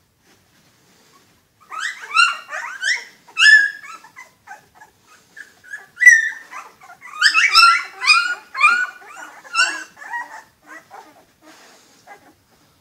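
Young puppies crying: short, high-pitched cries that rise and fall. A burst starts about two seconds in, and a longer run of them comes from about six seconds in.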